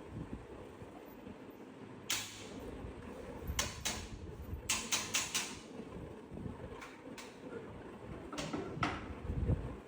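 Scattered knocks and clicks of objects being handled, including a quick run of about five clicks around the middle, over a low rumbling background.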